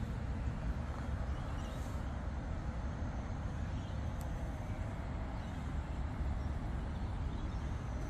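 Outdoor ambience: a steady low rumble of distant road traffic, with a faint click about four seconds in.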